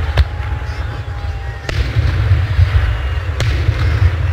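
Aerial fireworks bursting: three sharp bangs about a second and a half apart, over a steady low rumble.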